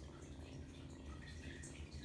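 A British Longhair kitten purring with a low steady rumble while its belly is rubbed, with light rustles and ticks of a hand moving through its fur.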